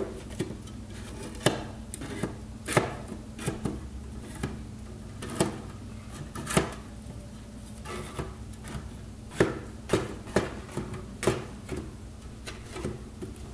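LED circuit boards being slotted one after another into a 3D-printed plastic board holder: irregular sharp clicks and taps of board edges against plastic and the wooden bench, over a steady low hum.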